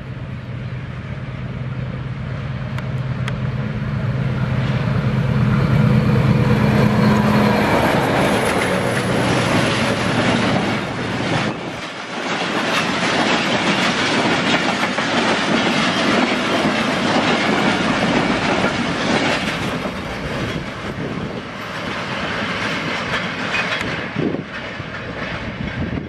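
A PHA-20 diesel-electric locomotive approaches with its engine droning, growing louder until it passes close. Its passenger coaches then rush by with wheels clattering rapidly over the rail joints, fading a little near the end.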